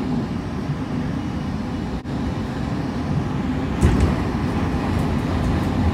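Running noise of a local electric train heard from just behind the driver's cab: a steady low rumble from wheels on rail, with a louder jolt just before four seconds in and a few faint ticks near the end.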